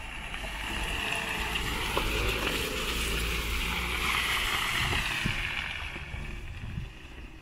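A 2020 Land Rover Defender driving slowly past through wet, muddy ruts: engine and tyre noise growing louder as it approaches, then fading as it moves away.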